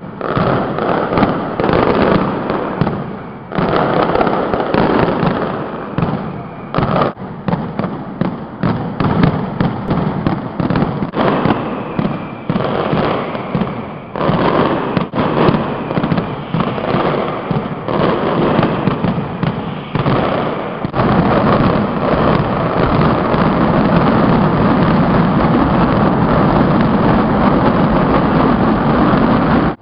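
A dense barrage of firecracker bangs, coming in irregular rapid volleys. After about twenty seconds it thickens into a continuous, unbroken din of explosions.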